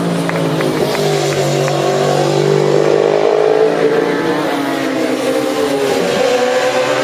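Racing motorcycles going past at speed on a road course. The engine note rises to a peak just past the middle and falls away, and near the end another bike's note climbs as it approaches.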